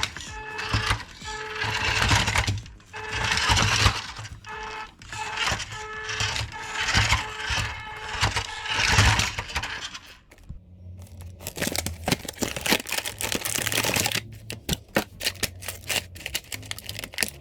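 Background music with a repeating pitched phrase, giving way about ten seconds in to a rapid run of sharp clicks and rattles over a low steady hum.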